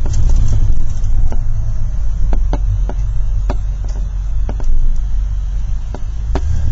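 A school bus, heard from inside, running along a street with a steady low engine and road rumble. Sharp, irregularly spaced clicks and knocks come through the rumble, the kind of rattles a bus body makes over the road.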